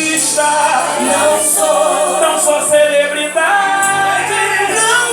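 Gospel worship music: a voice sings over a band with a steady bass and cymbal hits.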